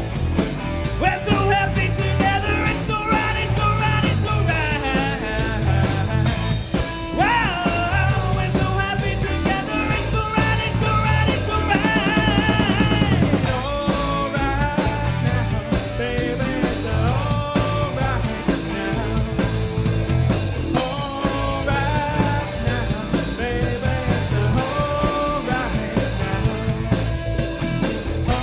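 Live rock band playing on drum kit, bass and electric guitars. A lead melody line rides over the beat, sliding up in pitch about seven seconds in and wavering with a wide vibrato around twelve seconds in.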